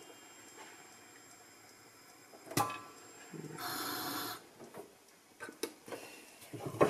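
Popcorn cooking in a pan on low heat, the last kernels popping: a few sharp, isolated pops, the strongest about two and a half seconds in, a short hiss of about a second in the middle, and a couple of small clicks near the end.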